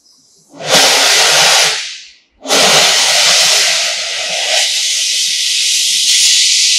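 Gas welding torch flame hissing: a loud burst of about a second, then a steady hiss from about two and a half seconds in while the weld bead is run with a filler rod.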